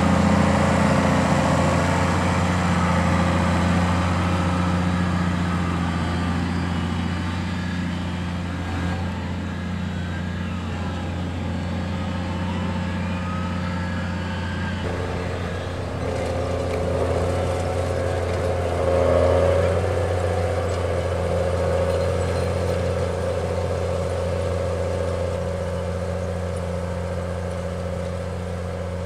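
Case IH Puma 180 CVX tractor's six-cylinder diesel engine running steadily while pulling a Lemken Saphir 7 seed drill through tilled soil. The tone shifts slightly about halfway through.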